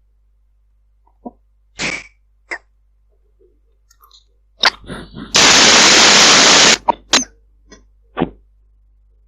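Strange sounds over a Viber call line: scattered short crackles and pops, then a loud burst of harsh, clipped static lasting about a second and a half, then more short pops.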